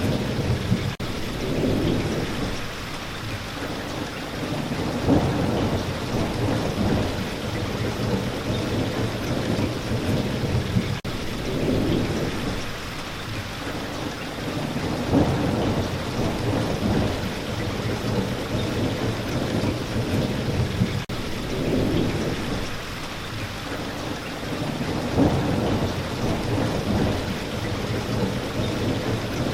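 Steady rain falling, with low rumbles of thunder swelling and fading every few seconds. The same pattern comes back about every ten seconds, as in a looped recording.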